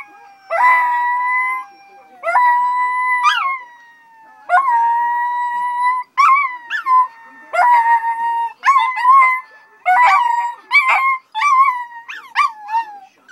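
Small dogs, a Chihuahua and a Maltese, howling along: long, drawn-out howls at first, then shorter, quicker howls with sharp upward swoops in the second half.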